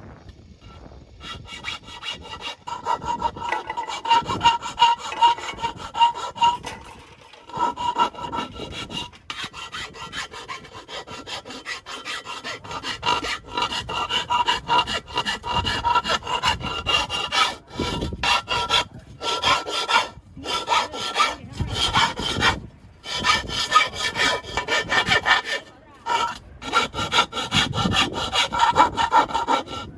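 Wood being cut with a hand saw: fast, uneven back-and-forth strokes with a ringing edge, stopping briefly several times before starting again.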